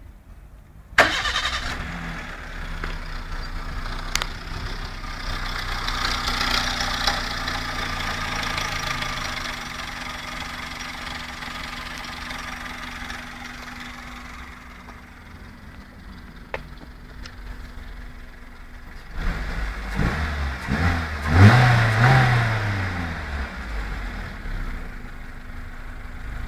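Car engine hot-started about a second in and left to idle, its raised idle easing down. After about twenty seconds it is revved several times, rising and falling, then drops back to idle. The engine has a knock.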